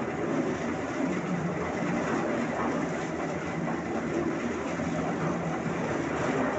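Heavy machinery running, a steady mechanical rumble with a low hum.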